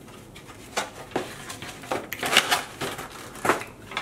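Foam takeout clamshell box and plastic drink cup being handled on a table: scattered knocks, taps and rustles, busiest around the middle.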